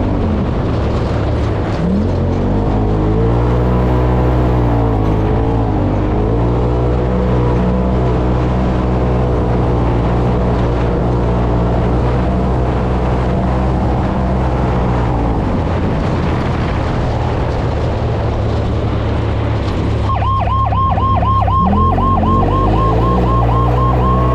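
UTV engine running hard on a dirt trail, its pitch rising and falling with the throttle. About 20 seconds in, a fast-warbling electronic siren starts and keeps going over the engine.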